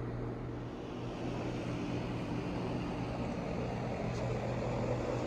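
Blower fan of a Gemmy inflatable Halloween pumpkin running steadily, a low hum under a rush of air.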